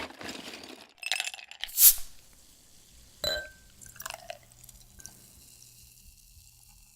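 Scattered rustling and handling noises, then a sharp knock with a brief ringing tone, over a low steady hum.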